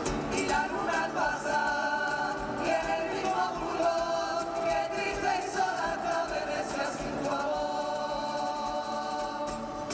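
A vocal group singing live in harmony: several women's voices with a man's, holding long sung notes over a quiet accompaniment, amplified through the stage PA.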